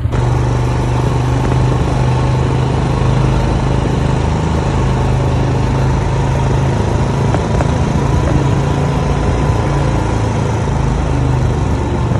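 ATV engine running steadily under way, with a constant low hum and little change in pitch.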